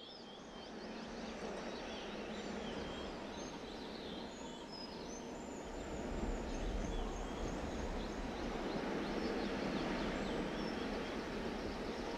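Outdoor ambience: many small birds chirping and twittering over a steady background hiss, with a low rumble that grows from about halfway through.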